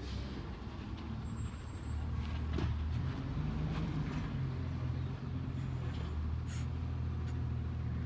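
Automated side-loader garbage truck's engine running with a steady low hum while the truck stands at the curb and its arm lifts a cart. A few faint clanks come through, about two and a half seconds in and again after six seconds.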